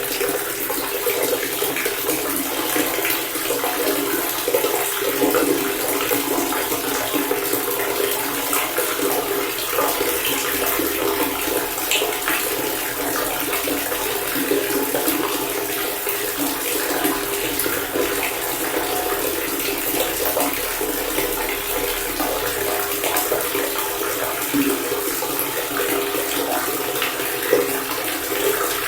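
Water pouring steadily from a faucet in an unbroken, splashing stream, with small droplet splashes ticking through it.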